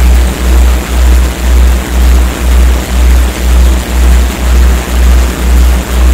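Synthesized 'morphic field' audio track: a loud, deep electronic hum pulsing about twice a second over a steady hiss.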